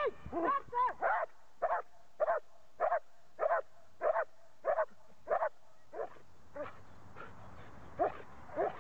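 Dutch Shepherd police dog barking in an even rhythm, about one bark every 0.6 seconds, guarding the decoy in the stick-guarding exercise. A few high whining yelps come in the first second. The barks turn faint and sparse a little after the middle, then come back strongly near the end.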